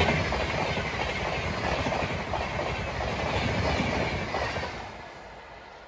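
Howrah Rajdhani express passing at about 135 km/h, its coaches rushing by with wheels clattering over the rail joints. The noise drops off sharply about five seconds in as the end of the train goes by, leaving a fading rumble.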